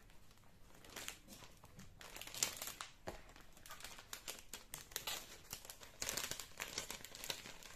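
Scratch-art kit packaging, stencils and sheets crinkling and rustling as they are handled and slid back into the pack, in irregular bursts of small crackles, busiest near the middle and toward the end.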